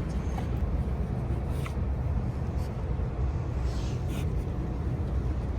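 Steady low rumble with a few faint clicks and ticks.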